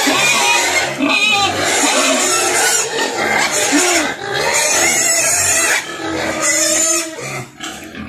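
A pen of pigs squealing loudly and continuously, hungry pigs clamouring while their wet feed mash is being stirred. The din eases near the end.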